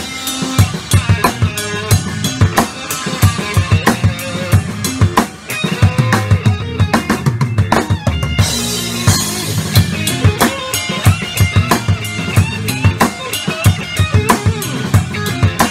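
Rock drum kit playing a steady groove of kick drum, snare and hi-hat over a rock backing track, with a Zildjian A Custom crash cymbal struck about eight and a half seconds in.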